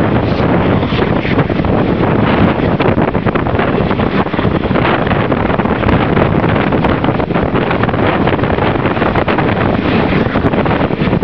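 Wind buffeting a microphone held out of the window of a moving train, a steady loud rush with constant flutter, over the train's running noise.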